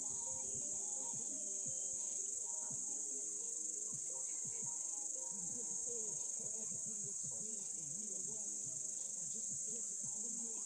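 Steady, high-pitched insect chorus, unbroken throughout, with faint lower sounds underneath.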